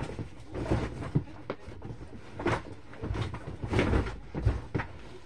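Bags of gear and a cardboard box being shifted and handled, giving irregular bumps, knocks and rustling, with several sharper knocks in the second half.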